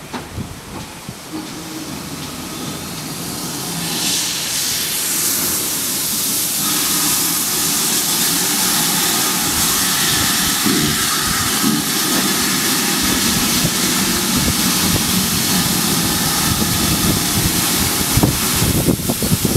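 GWR Prairie tank steam locomotive 5199, a 2-6-2 tank engine, approaching with a broad steam hiss that grows steadily louder as it nears. A few sharp knocks come near the end as it draws alongside.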